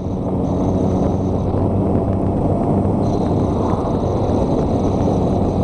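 Motorcycle cruising at a steady road speed: a steady engine hum under heavy wind rush on the rider's microphone.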